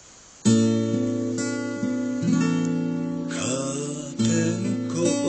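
Steel-string acoustic guitar playing a song's opening chords. A loud chord rings out about half a second in, followed by a string of further picked and strummed chords, each left to ring.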